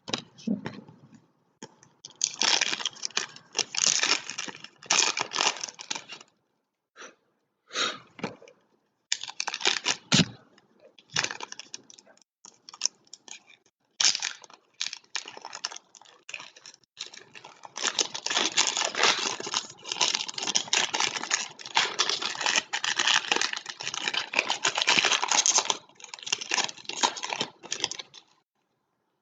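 Crinkling and tearing of trading card pack wrappers being opened by hand, in irregular bursts with short pauses and a longer unbroken stretch of crinkling in the second half.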